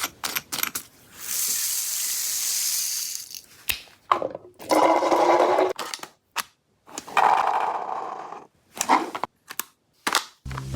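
Electric gel blaster toy: scattered clicks, a hissing stretch, then two whirring bursts of about a second and a half each, separated by sharp clicks.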